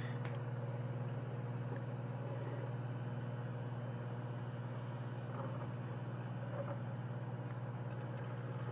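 Microwave oven running with a steady electrical hum, its turntable turning with an electrical receptacle inside.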